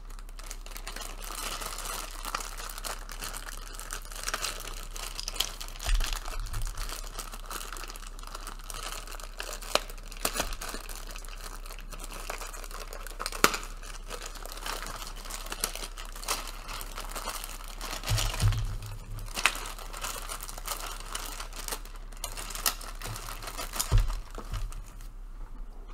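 Plastic parts bag crinkling and rustling while being handled and shaken, full of small crackles, with a few knocks of hard plastic toy parts on the table.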